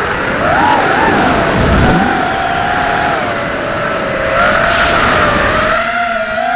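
Electric motors and propellers of an Impulse RC Alien 6-inch racing quadcopter whining, the pitch rising and falling as the throttle changes. Heard through the onboard camera's microphone with wind rushing past.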